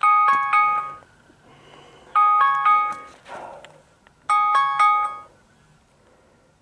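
Smartphone alarm ringing: a short chiming phrase of a few notes, repeated three times about two seconds apart, signalling that the challenge timer has run out.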